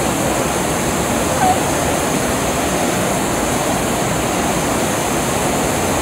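Whitewater rapids rushing over boulders, a loud steady roar of water.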